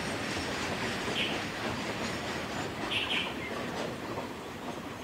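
Freight wagons' steel wheels rolling along the rails as the tail of the train passes, the noise slowly fading. A bird chirps briefly about a second in and again about three seconds in.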